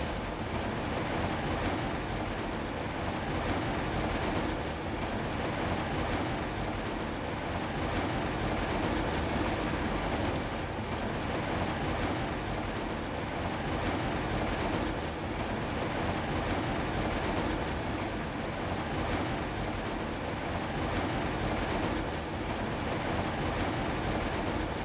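Steady rain falling: a dense, even hiss that holds constant throughout.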